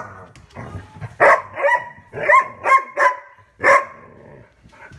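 Young yellow Labrador barking in a run of about six short, high-pitched barks, then falling quiet. He is barking at a marrow bone on the floor that he is wary of and doesn't know what to do with.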